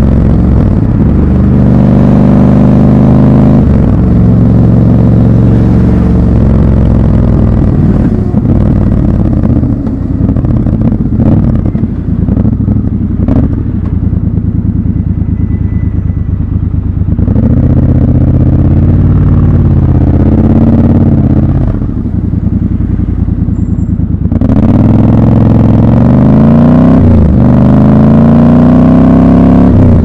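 Triumph Scrambler 1200 XC's 1200 cc parallel-twin engine heard from the rider's seat. It climbs in pitch with gear-change steps in the first few seconds, runs low and slow through the middle with a few sharp clicks, and climbs again through the gears near the end.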